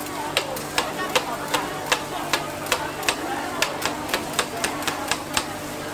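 A metal griddle scraper chopping down through rolled filled pancakes onto a steel griddle: a quick series of sharp clicks, about three a second, that stops near the end.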